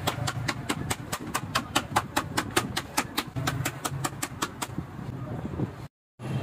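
A handheld wooden pounder rapidly tapping a black shoe sole pressed onto a sheet of leather over a stone block, about five taps a second. The tapping stops shortly before the end, over a steady low hum.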